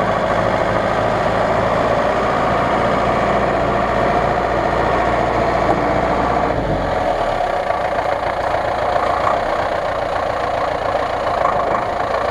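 Off-road vehicle engines running steadily while a cab-over army truck is pulled through a flooded mud hole on a winch cable. A deep low hum drops away about seven seconds in, leaving the steady mid-pitched running sound.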